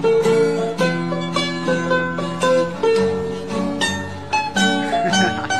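Background music: a quick tune on a plucked string instrument, many short notes picked in succession with a few held longer.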